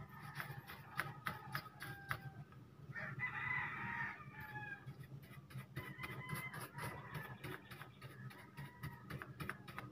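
A rooster crowing in the background, loudest from about three to four and a half seconds in, with fainter chicken calls around it. Light clicks and taps run throughout.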